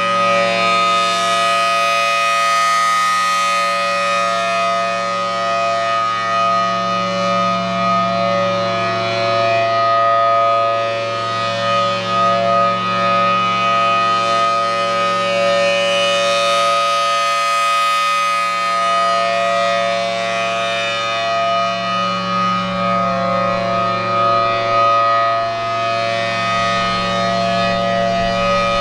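Federal Signal Thunderbolt 1000T outdoor warning siren sounding the steady full-alert signal: a loud, constant-pitch tone that swells and fades every several seconds as the rotating siren head sweeps past.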